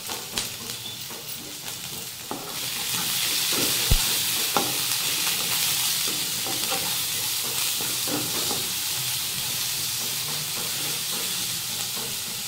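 Tomato wedges sizzling in oil in a nonstick kadai, the sizzle getting louder about two and a half seconds in. A wooden spatula stirs them, knocking against the pan a couple of times about four seconds in.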